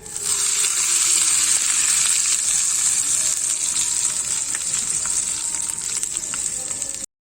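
Oil sizzling loudly in a hot pan with scattered small pops, as in tempering (tadka) for coconut chutney. It starts suddenly and cuts off abruptly near the end.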